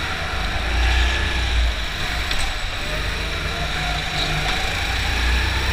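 Go-kart engine running at racing speed, its pitch rising and falling through the corners, heard from an onboard camera with a heavy low rumble.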